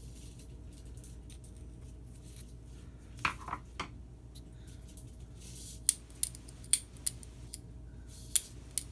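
Small sharp metallic clicks and taps from handling a porcelain light socket and its new ball pull chain: a few soft knocks, then from about six seconds in a run of about seven sharp clicks, roughly two a second, over a faint steady hum.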